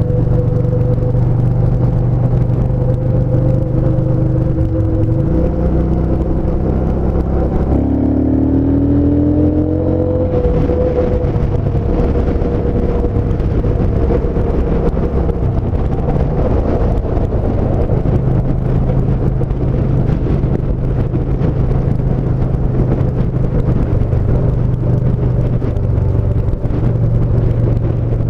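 Yamaha SCR950's air-cooled V-twin running steadily at speed on the motorcycle, over constant road and wind noise. Its engine note dips about five seconds in, then climbs between about eight and ten seconds in.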